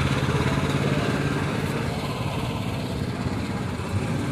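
A vehicle engine running steadily at low speed, easing off a little after about two seconds.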